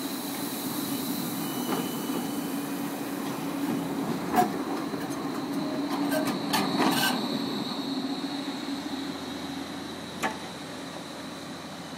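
Low-floor electric tram passing close by, with a steady hum and a thin high whine. Its wheels give sharp clacks, one about four seconds in, a quick cluster around six to seven seconds in, and a last one near the end.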